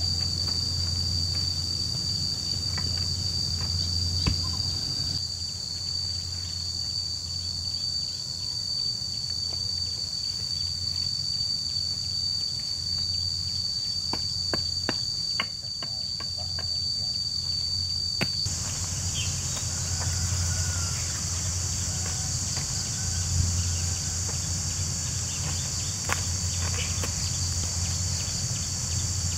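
A steady, high-pitched insect chorus, one unbroken tone that turns into a broader, hissier buzz about two-thirds of the way through. Scattered knocks and taps from hand-tool work on wood and soil come through it.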